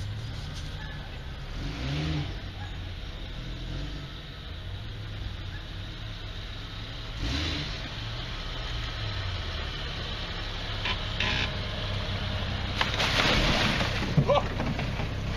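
An off-road vehicle's engine running and revving up and down several times. A rush of noise rises over it near the end.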